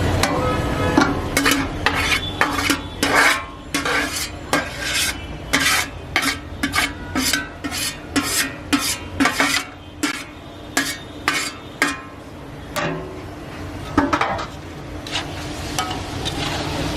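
Metal spatula stir-frying rice in a wok, clanking and scraping against the pan in quick repeated strokes, about two to three a second. The strokes stop about twelve seconds in, with a couple more a little later.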